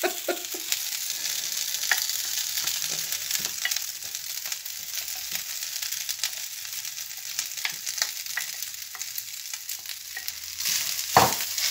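Yellow rice with peas sizzling in a hot non-stick frying pan while a plastic spoon stirs and scrapes it, with small clicks of the spoon on the pan. A louder knock near the end.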